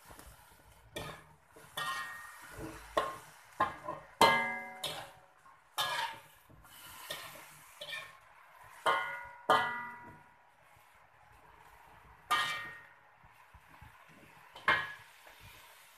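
Slotted metal turner clanking and scraping against a metal wok while stir-frying leafy greens and baby corn: irregular knocks, the sharper ones leaving a brief metallic ring.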